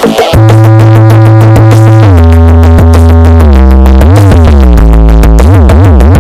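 Electronic dance music played very loud through a large carnival sound system during a sound check. Heavy deep bass and synth notes hold steady, then swoop up and down in pitch. The sound drops out briefly right at the start.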